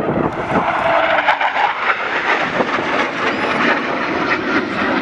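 Eurofighter Typhoon fighter jet's twin EJ200 turbofan engines running at display power as the jet flies past, heard as a loud, steady wash of jet noise.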